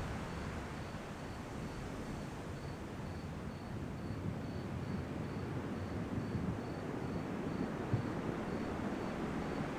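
Ocean surf washing in a steady low rush, with a faint cricket chirping high and evenly, about three chirps a second.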